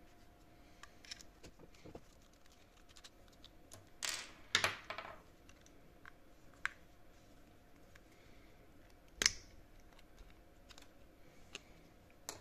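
Light clicks and clacks of a Tilta Nucleus Nano 2 lens motor's small metal-and-plastic housing being handled and its cover plate taken off, with a cluster of clacks about four seconds in and a sharp click past the middle.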